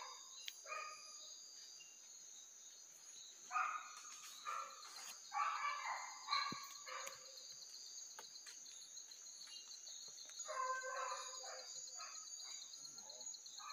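Faint hunting dogs baying in several short runs of barks while working an armadillo's trail, over a steady high chirring of night insects.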